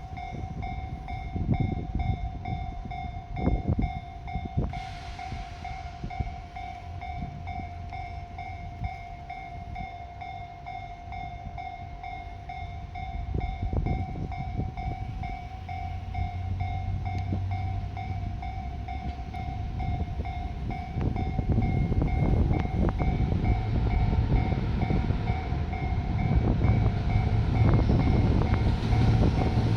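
Japanese level crossing alarm ringing in a steady, rapid repeat while a JR Shikoku Series 2600 limited-express diesel train approaches. The train's running noise grows steadily louder through the second half.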